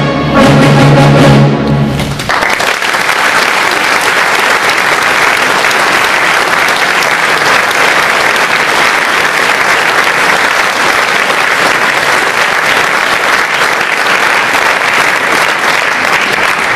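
A brass band holds its closing chord, which cuts off about two seconds in. Audience applause follows and continues steadily.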